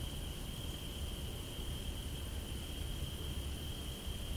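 Steady background noise: a constant high-pitched tone over a low rumble, with no distinct event.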